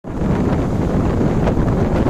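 Strong wind buffeting the microphone, a steady low rumbling noise, over the sea's waves.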